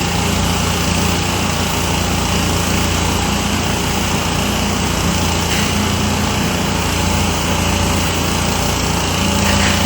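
A motor running steadily with a constant low hum and noise, unchanging throughout. No separate handling knocks stand out above it.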